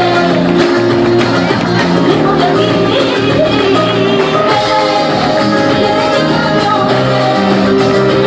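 Live band playing a flamenco-pop fandango on electric guitar and Spanish guitar, with a woman singing.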